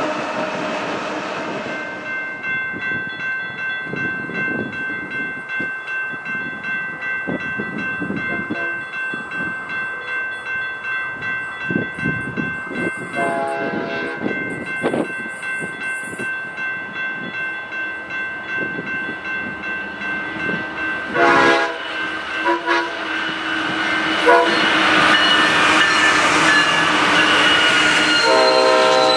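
Freight cars rolling past on the rails. Then a grade-crossing warning bell rings steadily while approaching BNSF diesel locomotives sound their horn in several blasts for the crossing. The rumble of the lead units grows louder near the end as they reach the crossing.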